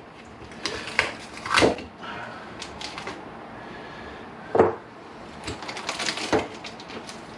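Brake pads and small parts handled on a wooden workbench: a few sharp clicks and knocks, the loudest about a second and a half in and again past four and a half seconds, with lighter rattling ticks near the end.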